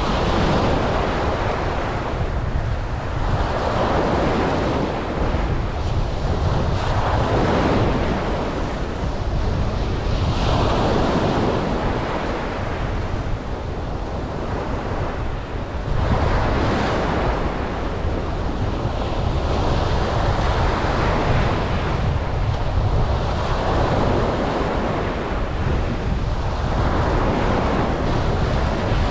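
Ocean waves breaking and washing up a beach, surging every three to four seconds over a steady low rumble.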